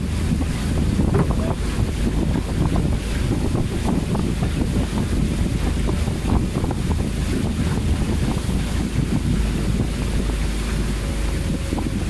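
Small aluminium boat under way: heavy wind buffeting the microphone over the steady noise of the boat's motor and water rushing and splashing along the hull.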